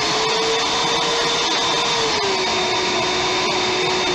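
High-powered blender running hard on a thick load of frozen fruit and a little milk, with a tamper pressed down through the lid. The motor's steady whine rises slightly and then drops back a little about two seconds in.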